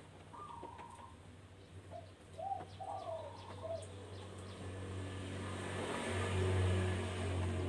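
A series of short rising-and-falling cooing calls, several in the first four seconds, typical of doves. Under them, a low steady rumble swells from about five seconds in and is loudest near the end.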